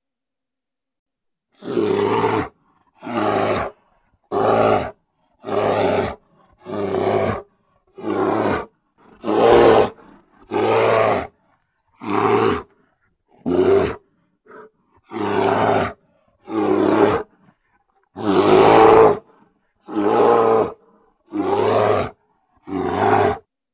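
Grizzly bear roaring in a rapid series of about seventeen short roars, each under a second long, separated by brief silences; one longer, louder roar comes about three quarters of the way through.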